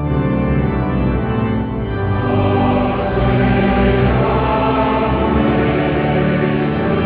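Organ music with a choir singing over it, the sound growing fuller about two seconds in.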